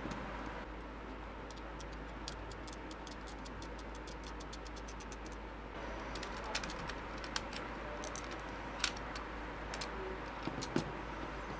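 A computer mouse's microswitch clicked over and over in a quick, even run of about five clicks a second, then scattered small clicks and taps of the mouse being handled.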